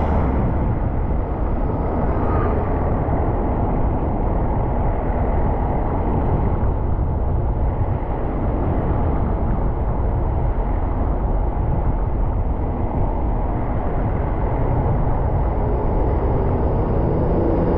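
Steady low rumble of road vehicle noise, continuous, with no single clear pass-by or horn.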